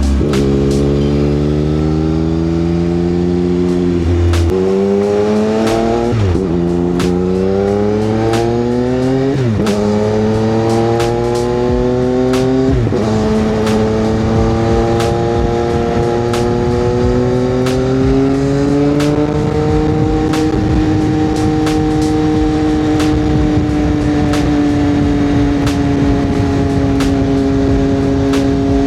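CFMoto 675SS inline-triple engine with an aftermarket exhaust, heard from the moving bike as it accelerates through the gears. The pitch climbs and drops sharply at each of four upshifts, then settles into a steady cruise for the second half.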